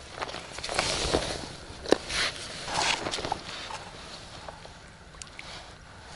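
Close splashing and sloshing of river water in several short bursts, with a sharp knock about two seconds in, then quieter.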